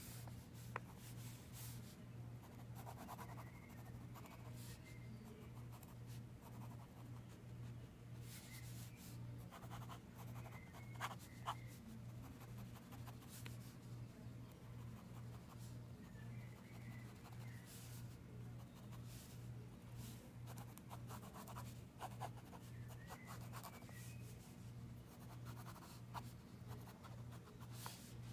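Ink pen tip scratching and swishing across sketchbook paper in short, irregular strokes as lines and hatching are inked, with a few light ticks of the pen. A low steady hum pulses evenly underneath.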